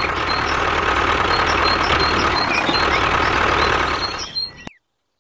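Tractor engine running steadily, then fading out about four seconds in, followed by a moment of silence.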